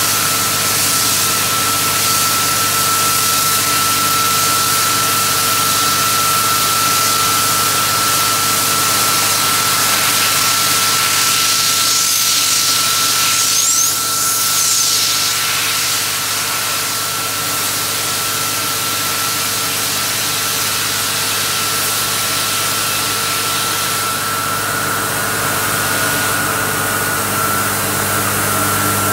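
1994 Ingersoll-Rand T3W water-well drill rig running steadily: a loud machine drone with a steady high whine and plenty of hiss over it, dipping briefly about halfway through.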